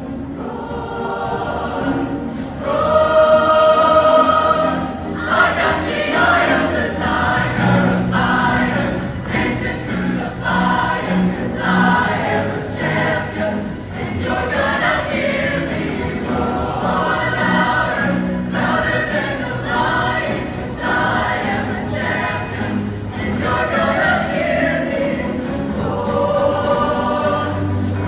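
Large show choir singing in harmony with band accompaniment. A loud chord is held about three seconds in, then a steady beat with a low bass line comes in under rhythmic singing.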